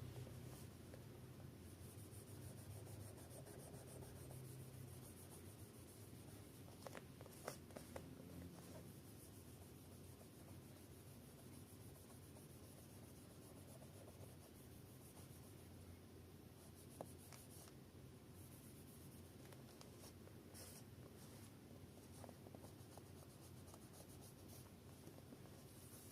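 Faint scrubbing of a toothbrush working old thermal paste off a CPU, with a few light clicks scattered through it.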